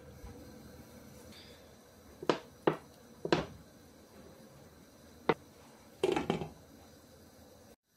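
Glass pot lid and a spice container knocking against a metal cooking pot: four short sharp clinks, then the lid set back down on the rim with a brief rattle near the end.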